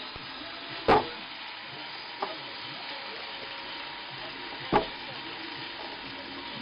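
Steady hiss-like background noise broken by two sharp knocks, about a second in and again nearly four seconds later, with a fainter click in between.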